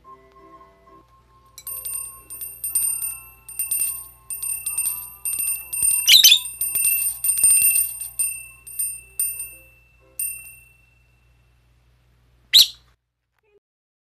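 Small handheld metal hand bell shaken over and over, its bright ringing repeating for about nine seconds and loudest about halfway through. A single short, sharp sound near the end.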